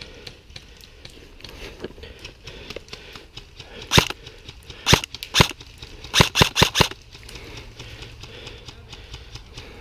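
Airsoft electric rifle, an H&K 416 CQB, firing single shots as sharp snaps: three spaced shots about four seconds in, then a quick string of about five.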